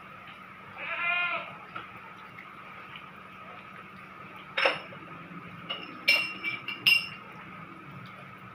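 A short bleating call about a second in, then several sharp, ringing clinks of hard objects knocked together, the loudest coming in quick pairs near the end.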